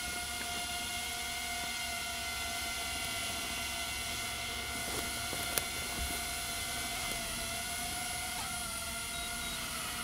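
DJI Avata 2 FPV drone hovering close by, its propellers giving a steady high-pitched whine that wavers slightly in pitch about eight and a half seconds in. A single sharp click sounds a little past halfway.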